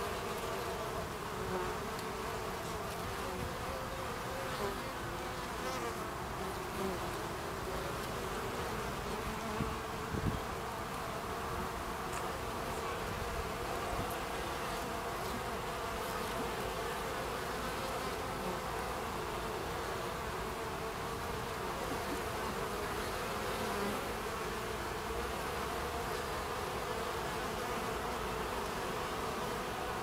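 Buckfast honeybees buzzing at the hive entrance: a steady hum of wingbeats from many bees flying in and out, with a few slightly louder moments in the first ten seconds.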